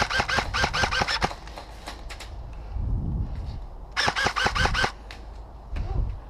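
An LCT AKMS airsoft electric gun firing two full-auto bursts, one at the start and one about four seconds in, at about seven shots a second.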